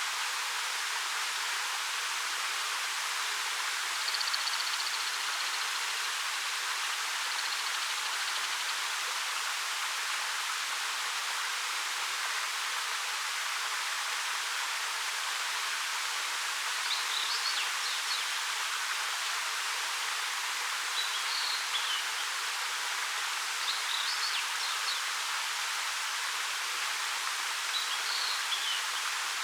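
A 13-metre waterfall pouring over black rock: a steady rushing hiss of falling water. Small birds chirp briefly and high above it, once early and four times in the second half.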